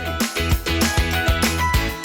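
Upbeat background music with a steady drum beat and bright instrumental notes.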